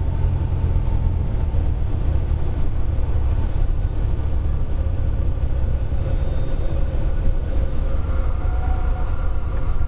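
Cessna 172's engine and propeller throttled back for landing, heard from inside the cabin as a steady low rumble with airflow noise.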